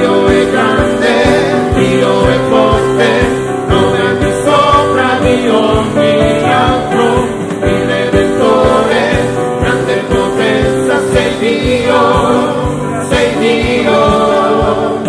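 Gospel worship song sung by a small group of men's and women's voices together, accompanied by acoustic guitar, with a steady beat underneath.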